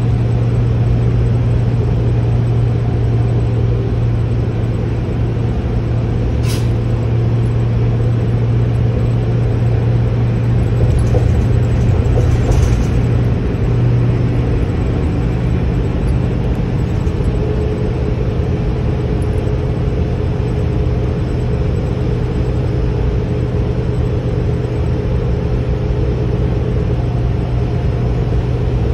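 Gillig Advantage low-floor city bus under way, heard from inside the passenger cabin: a steady low engine drone with road rumble. A single sharp click sounds about six seconds in.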